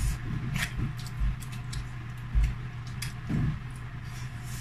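Close-up eating sounds: crispy deep-fried chicken being bitten and chewed, with scattered sharp crunches and clicks and a few low thumps.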